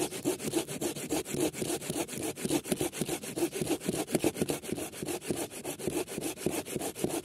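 Bahco Laplander folding saw cutting through a thick log with quick, even back-and-forth strokes.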